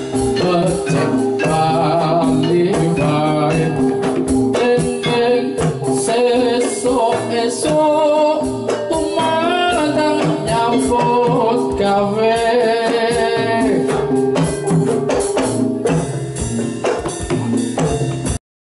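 Javanese gamelan music for jathilan: a kendang hand drum beating out the rhythm over sustained gong and bronze kettle-gong tones, with a voice singing over the ensemble. The music cuts off abruptly near the end.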